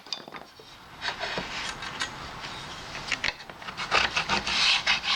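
Scraping and rubbing on plywood, with scattered light knocks from wood and tools being handled. It builds from about a second in and is loudest near the end.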